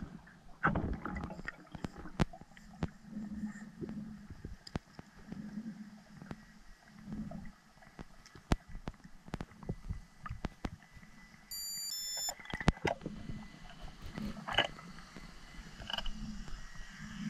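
Muffled underwater noise of a spearfisher swimming with a speargun: scattered sharp clicks and knocks of gear, and low, dull pulses of water moving past the camera. A brief cluster of high steady tones sounds about two-thirds of the way through.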